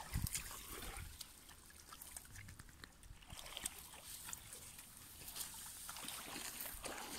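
Shallow river water trickling over stones, with light splashes and clicks as Akita dogs wade and step on wet pebbles at the edge. A dull bump sounds just after the start.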